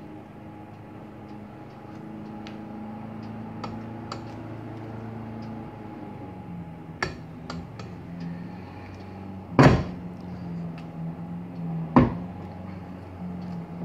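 Moped engine crankcase halves being pressed and knocked together: a few light clicks, then two loud knocks a couple of seconds apart, the first the louder. The heated half is not dropping freely into place over the shafts. A steady hum runs underneath.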